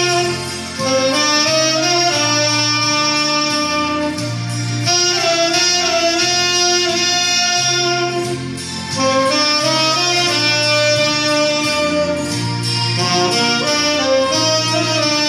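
Alto and tenor saxophones playing a slow hymn melody together in harmony, over a low bass accompaniment that changes note about once a second. The saxophones pause briefly between phrases about a second in and again around eight to nine seconds in.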